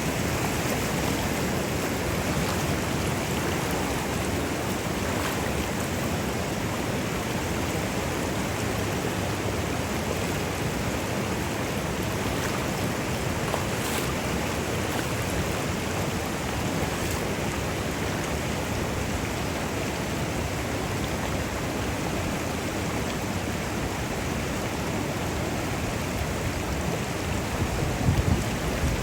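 The Virgin River rushing over small waterfalls in a steady, even roar of water, with a few brief low bumps near the end.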